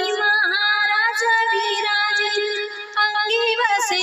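A woman singing a Marathi Shiva aarti, drawing out a line in long gliding notes over a steady held drone from the accompaniment, with a short break for breath about three seconds in.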